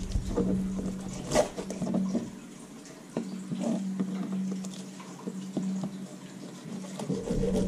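Fillet knife cutting a crappie fillet away from its skin on a plastic cutting board: scattered wet clicks and taps of the blade and the fish against the board, over a steady low hum.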